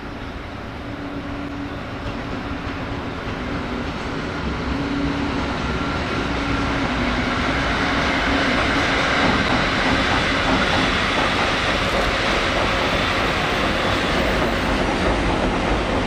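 Container freight train hauled by an EF510 electric locomotive approaching and passing on a viaduct, growing louder over the first half, then a steady, rhythmic clickety-clack of the container wagons' wheels over the rail joints.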